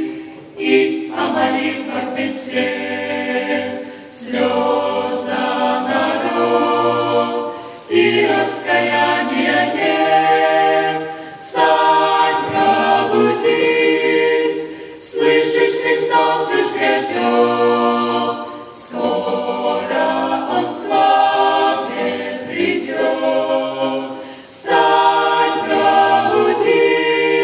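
Mixed ensemble of women's and men's voices singing a Russian-language gospel song in harmony, a cappella, through handheld microphones. The song moves in phrases of a few seconds, each followed by a short breath.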